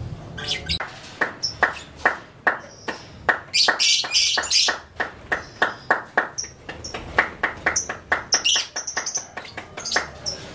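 Caged young lovebirds chirping: a long run of short, sharp chirps, a few a second, broken by brief bursts of high chatter about four seconds in and again near nine seconds.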